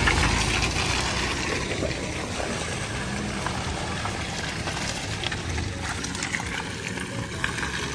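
Water splashing and sloshing as an off-road vehicle works through a muddy water hole, with the engine's low rumble fading in the first second or so.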